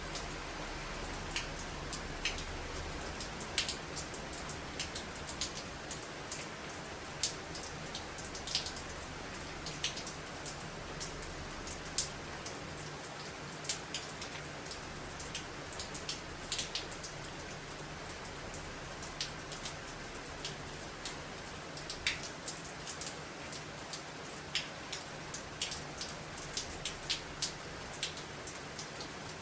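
Rain falling steadily as an even hiss, with many irregular sharp ticks of individual drops striking.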